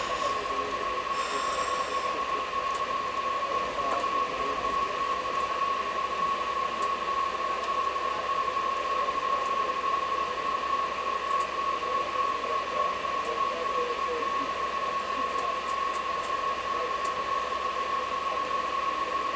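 Steady background of a passenger train standing at a station: an unbroken high hum over an even hiss, with a few faint ticks.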